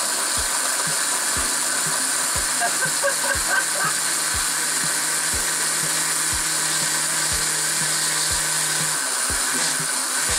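Oster blender with a glass jar running steadily on its grind setting, chopping pieces of chicken nugget and Pop-Tart in a little water.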